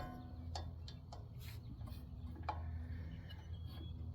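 A few light clicks and taps of small parts and tools being handled during work on a mower's ignition coil, over a steady low hum.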